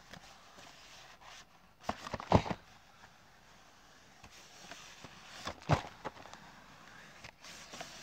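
Cardboard biscuit cartons being handled and set down on a bedsheet: short knocks and scrapes, about two seconds in and again near six seconds.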